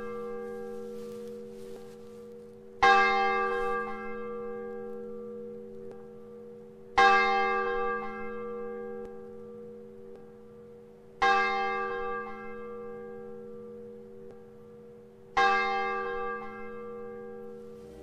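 A single church bell tolling slowly, struck four times about four seconds apart. Each stroke rings on and fades before the next, and the tail of an earlier stroke is still sounding at the start.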